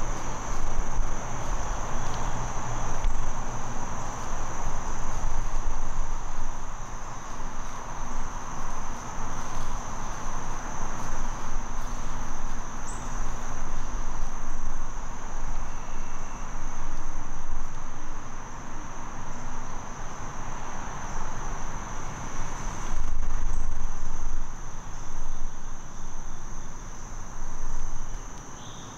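A steady, high-pitched trill from a chorus of insects, with an uneven low rumble and hiss beneath it that rise and fall.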